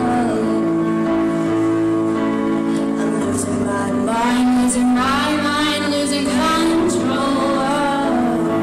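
Live music: a teenage girl singing solo over held accompaniment chords that change every few seconds, her sung phrases coming loudest in the middle and again near the end.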